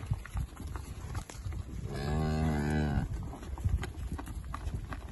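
Dairy cow mooing once, a single call of about a second that comes about two seconds in, over scattered short knocks.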